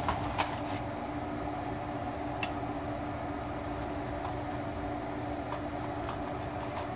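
Steady mechanical hum throughout, with a few light clicks and scrapes of a spatula against a foil-lined baking tray as the cauliflower steaks are lifted: a cluster at the start, one about two and a half seconds in, and several near the end.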